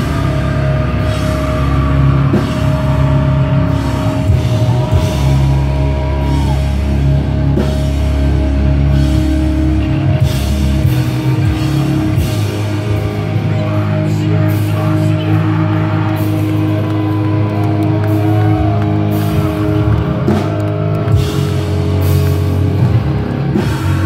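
Live metalcore band playing loud, with heavy distorted guitars, bass and drums, the chords changing every few seconds and cymbals crashing through the second half.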